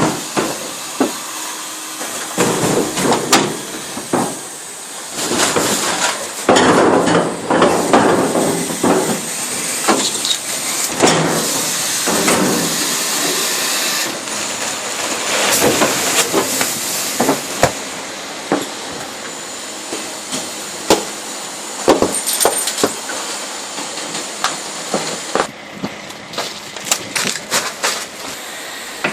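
Garbage truck compactor crushing trash bags: many sharp pops and cracks as the bags burst under the packer, over a steady hiss.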